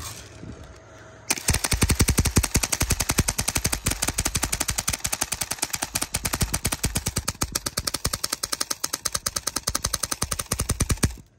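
Homemade airsoft BB marker, built as a replica of a paintball marker, firing a long, rapid, even string of shots. The shots start about a second in and stop sharply near the end.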